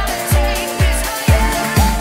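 Background music with a steady beat: a deep kick drum about twice a second under a melody line.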